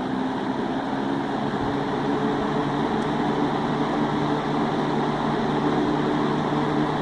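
Vintage Hoover multipurpose 20-inch box fan (model E1502) running on high speed: a steady rush of air from the blades over the hum of its two-speed motor. It gets a little louder over the first couple of seconds, then holds steady.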